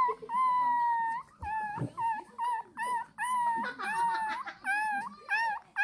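Twenty-day-old Shih Tzu puppy crying in high-pitched whining cries: one long cry of about a second near the start, then a run of short cries about two a second. It is crying to be fed.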